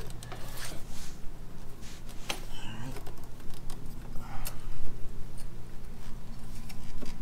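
Scattered light clicks and knocks of metal parts being handled and fitted by hand: the Ryker handbrake's rear slave cylinder bracket being worked into place, over a steady low hum.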